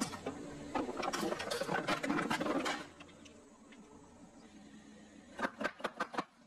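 Car tyre rolling over a row of tin cans, the metal crunching and crackling for about three seconds as they are crushed flat. Near the end, a quick run of about five sharp cracks.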